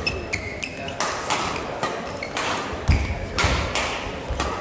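Badminton rally: a string of sharp racket hits on the shuttlecock, with short high squeaks of court shoes on the hall floor and low thuds of footwork, the heaviest about three seconds in.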